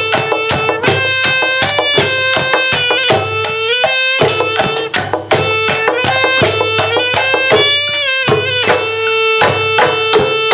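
Live ensemble music for a sound-exploration piece: a held melodic tone that bends in pitch now and then, over dense, quick percussive strikes.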